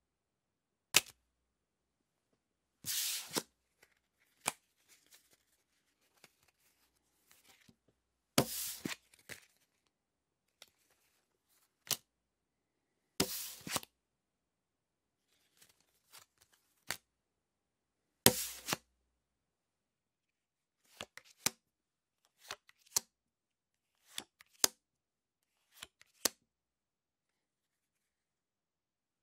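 Playing cards handled in separate takes with silence between: a sharp snap, then four short swishing passes about five seconds apart, each ending in a light tap. In the last third comes a run of quick, sharp card snaps, often in twos.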